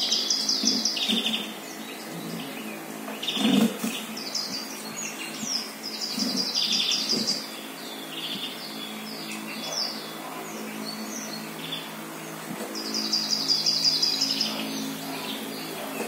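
Small songbirds chirping and trilling, heard through a television's speakers from a winter bird-feeder video. Rapid high trills come in three main runs, at the start, around six seconds in and near the end, with shorter chirps between.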